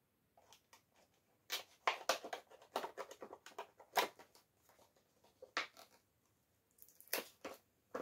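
Hands opening a small boxed kit: irregular crackling and rustling of the packaging, thickest from about one and a half to four seconds in, with a few more crackles near the end.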